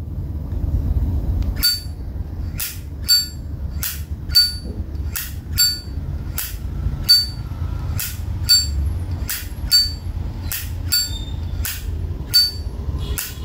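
A vintage Zippo lighter's lid is flipped open and snapped shut over and over, starting about two seconds in. It gives about two sharp metallic clicks a second, each with a brief ringing ping. This is the original, unaltered hinge and cam sound of the lighter.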